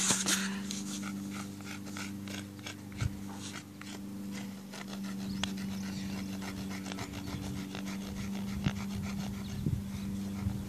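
Sidewalk chalk scraping on rough pavement in quick, repeated back-and-forth strokes as a patch is coloured in, over a steady low hum.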